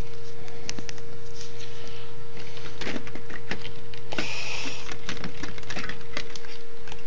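Scattered small clicks and knocks of plastic and metal parts being handled as the Ensoniq ASR-10 sampler's panel is lifted off, with a brief rustle about four seconds in, over a steady electrical hum.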